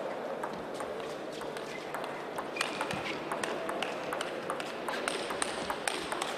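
Table tennis rally: the ball clicks sharply and irregularly off the bats and the table, back and forth.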